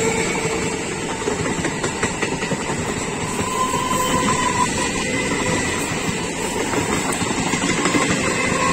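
EMU local train's coaches passing close by: a steady rumble of wheels on rail with a faint steady whine over it.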